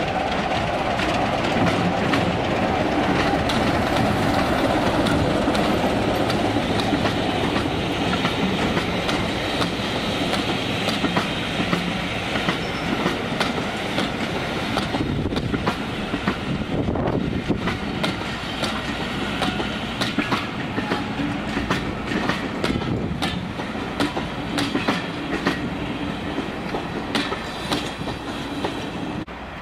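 A diesel locomotive hauling a train of coaches passes close by: the engine is loudest at first, then the coaches roll past with a clickety-clack of wheels over rail joints, the sound fading as the train draws away.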